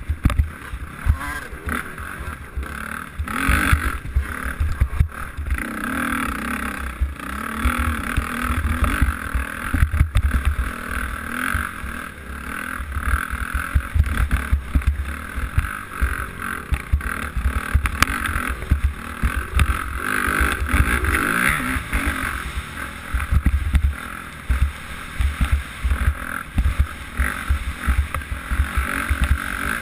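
Dirt bike engine running under the rider, its level rising and falling with the throttle, picked up by an onboard camera with wind buffeting the microphone.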